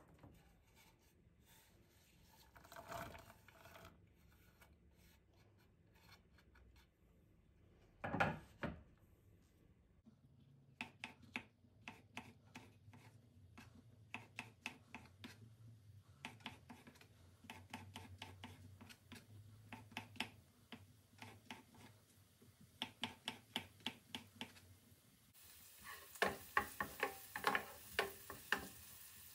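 Kitchen knife chopping on a wooden cutting board: runs of quick, sharp taps, several a second, loudest near the end. A single louder rustling thump comes about eight seconds in.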